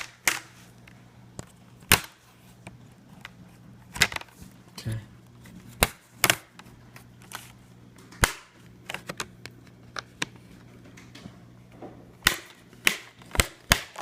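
Irregular sharp plastic clicks and snaps as a laptop's plastic trim around the screen is pried loose and handled, several in quick succession near the end, over a faint steady low hum.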